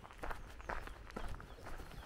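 Footsteps crunching on a dirt and gravel road, a steady walking pace of about two steps a second.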